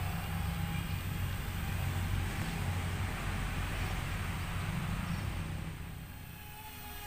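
KY902 mini quadcopter drone's propellers whirring, swelling over the first few seconds and fading about six seconds in, with wind buffeting the microphone.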